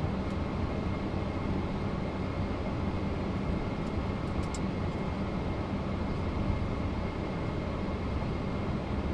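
Steady running noise of a Boeing 767-300ER heard inside its flight deck on the ground: a low hum with a faint steady high whine, and a few light clicks about four and a half seconds in.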